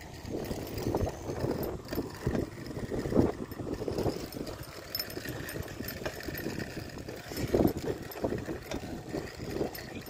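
Wind buffeting the microphone of a moving bicycle, with rumble from the tyres on a paved path, surging irregularly in gusts.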